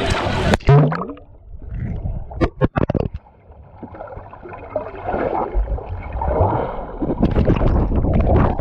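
Water gurgling and splashing, heard muffled as if from under the water, with a loud burst at the start and a few sharp knocks about two and a half seconds in.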